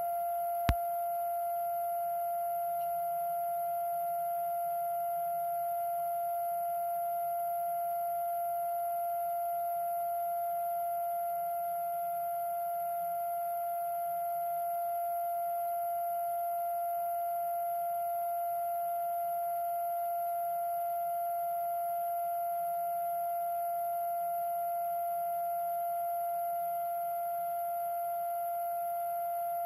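A steady electronic tone holds one pitch without change, with a faint high-pitched whine underneath. A single sharp click comes shortly after the start.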